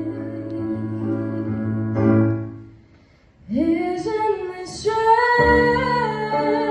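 A woman singing a slow song to electric keyboard accompaniment. The music breaks off briefly about halfway through, then the voice comes back in on a rising note over the keyboard.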